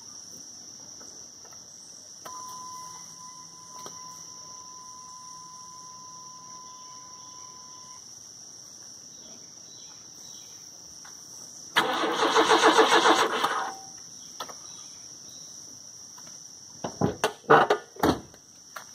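Chevy S10 Blazer's 4.3L CPI V6 being cranked by the starter for about two seconds without catching, followed near the end by several short, choppy cranks. The engine won't fire, with no fuel pump heard kicking in; the owner takes the fuel pump to be dead. Insects chirp steadily in the background.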